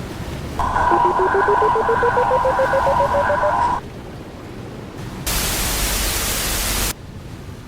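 Loud sound effects for a horror scare. First a harsh, distorted drone about three seconds long, with a stuttering tone underneath that climbs steadily in pitch. Then, after a short gap, a loud burst of static about a second and a half long that cuts off abruptly. A rushing sound like wind or surf runs underneath.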